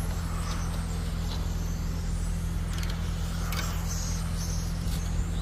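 Radio-controlled race cars running on the track, their motors heard as brief faint whines as they pass, over a steady low hum.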